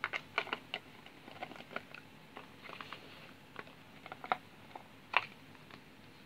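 Light clicks, taps and scrapes of small cardboard jewelry boxes being handled and set down on a wooden table as a lid is taken off. A quick run of clicks comes at the start, and a single louder knock about five seconds in.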